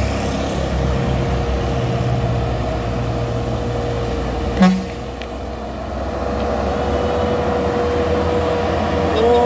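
Heavy diesel trucks running low and steady on a steep grade, with a steady whine over the engine noise. A short horn toot sounds about halfway through.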